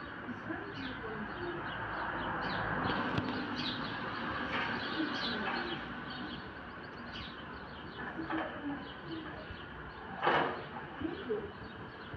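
Birds chirping, with low cooing calls like those of pigeons or doves, over a steady background hiss. A louder short sound comes about ten seconds in.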